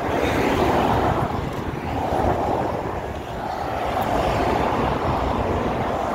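Highway traffic passing, a steady rush of tyres and engines that swells and eases as vehicles go by.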